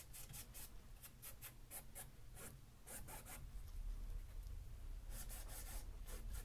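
Paintbrush stroking and dabbing paint onto a stretched canvas: faint short scratchy brushstrokes, a few a second, with a brief lull in the middle.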